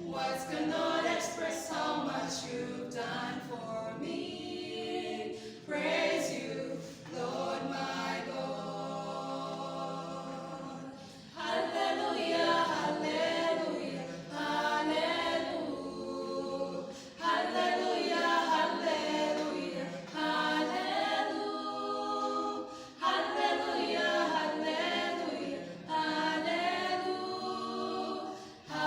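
A choir singing a praise song a cappella, several voices together in phrases a few seconds long, with short breaks between them.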